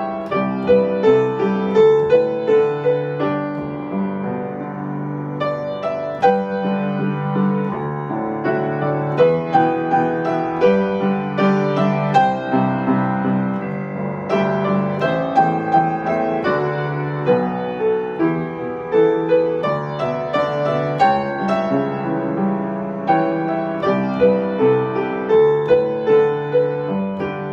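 Upright piano played solo: a melody over chords, each note struck and dying away.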